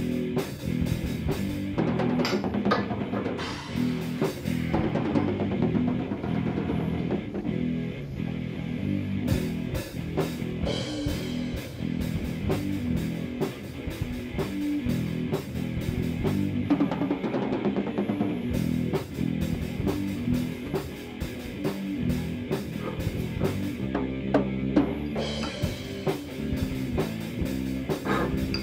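Background rock music with drums and guitar and a steady beat.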